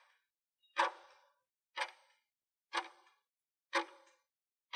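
Countdown-timer clock-tick sound effect: sharp ticks with a short ring, one a second, four in all. A loud ringing bell-like alarm cuts in at the very end as the countdown runs out.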